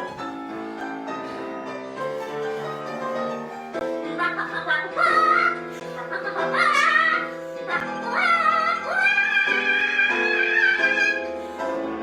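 Song accompaniment with piano chords under a woman's wordless singing. The voice slides upward and then holds a long high note near the end.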